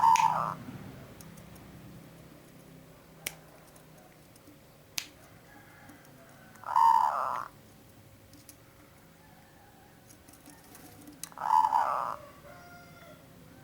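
Zebra dove (perkutut) cooing: three short coo phrases several seconds apart, the first right at the start, then about seven and eleven seconds in. Two sharp clicks fall between the first and second coos.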